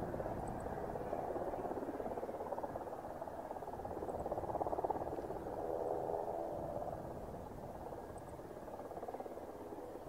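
Mitsubishi F-2 fighter's turbofan engine running at idle as the jet taxis, a steady hum with a faint whine, while strong wind rumbles on the microphone.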